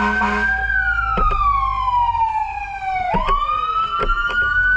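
Fire truck siren wailing, a slow rise and fall in pitch, over a steady low engine rumble, with a short horn blast at the very start.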